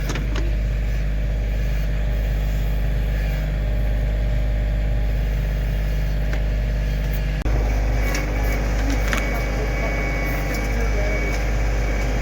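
Kioti CK2610 tractor's three-cylinder diesel engine running steadily. About seven and a half seconds in it suddenly gets a little louder and a thin high whine joins it.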